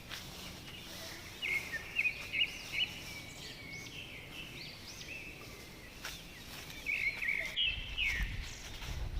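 Small songbirds chirping in woodland: quick, high chirping phrases in two bouts, the first about a second and a half in and the second around seven seconds in. A low rumble creeps in near the end.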